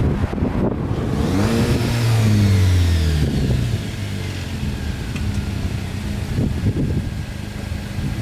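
Jeep Wrangler JL's 2.0-litre turbocharged four-cylinder, fitted with an aFe Mach Force-XP muffler-delete axle-back exhaust, drives past accelerating. The exhaust note is loudest about two seconds in, then drops in pitch and fades as it goes away.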